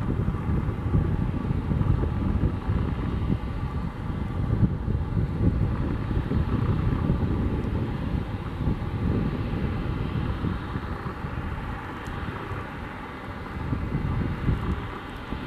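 Airbus A220-300's Pratt & Whitney PW1500G geared turbofan engines running at taxi thrust as the jet taxis, a steady low rumble with a faint whine above it.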